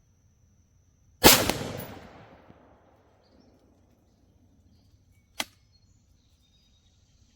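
A single rifle shot from a Palmetto State Armory Sabre 15 AR-15 in 5.56, firing .223 Remington 55-grain PMC, with its report echoing away over about a second and a half. About four seconds later there is one short, sharp click.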